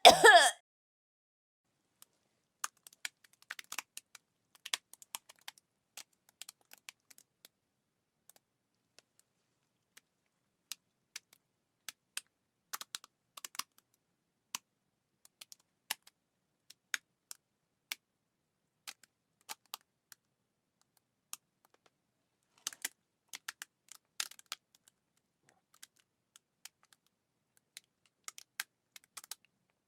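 The tail of a person's retching sound cuts off just after the start, followed by sparse, irregular light clicks in small clusters, like typing on a computer keyboard.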